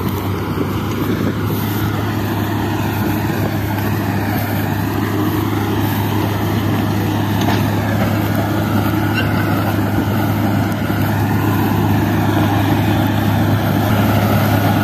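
John Deere 5310 tractor's three-cylinder diesel engine running steadily under load, powering a straw reaper that cuts wheat stubble into chaff; a steady, loud hum with the machine's even mechanical clatter over it.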